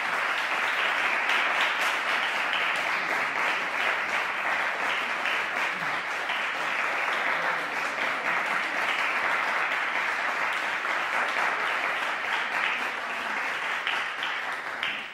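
Concert audience applauding steadily, a dense, even clapping with no let-up.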